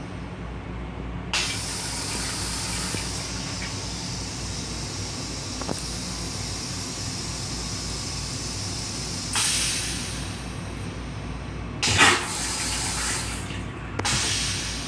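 M7 railcar toilet flushing: a hiss of rinse water spraying into the stainless-steel bowl starts about a second in and runs for several seconds. Further surges of hissing and a sharp clunk follow near the end. A steady low hum of the train runs underneath.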